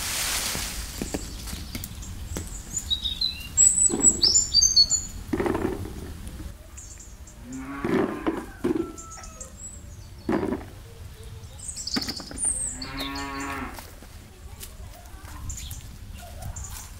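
Cattle mooing several times, the last call the longest at about a second, with small birds chirping in between.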